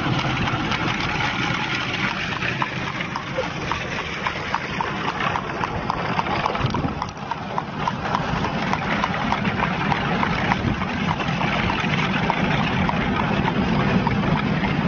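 A trotting horse's hooves clip-clopping in a regular beat on the paved road as it pulls a buggy, over a constant loud rushing noise.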